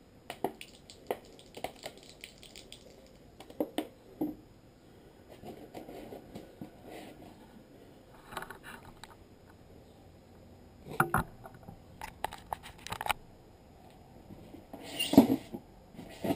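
Handling noises as a plastic water bottle and a target board are moved and set down on a concrete floor: irregular clicks, knocks and scrapes, with the loudest knock and scrape a little before the end.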